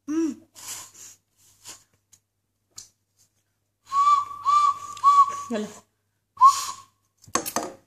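Small toy whistle blown by a child: three short toots with a dip in pitch, running into a held note, then one more short toot a second later.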